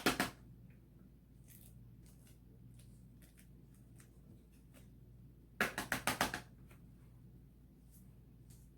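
Shaving cream being scraped off slime in short, quick rasping strokes: a burst right at the start and another of several strokes about six seconds in, with faint scrapes and ticks between.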